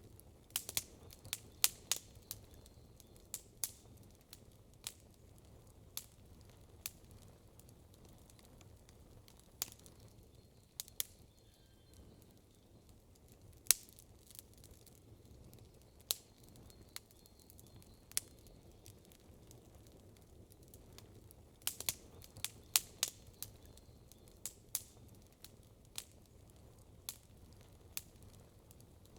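Campfire wood burning with sharp, irregular crackles and pops, bunched at times, over a low steady rumble.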